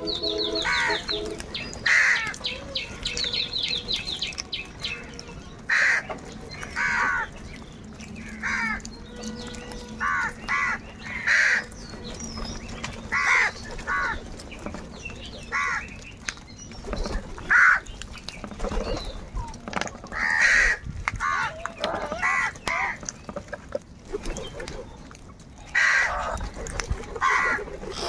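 A flock of house crows cawing, short harsh calls from many birds following one another every second or two, some overlapping.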